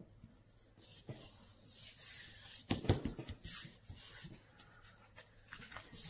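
Paper and cardstock rustling and sliding on a tabletop as a handmade card is handled and pressed together, with a soft thump about three seconds in and scattered small taps.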